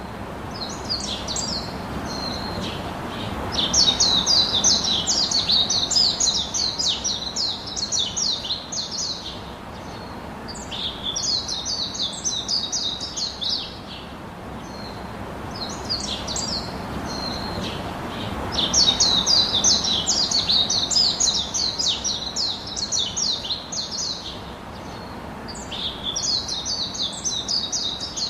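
Small birds chirping in bursts of rapid, high twittering notes lasting a few seconds each, with short pauses between, over a steady rushing background that swells and fades twice.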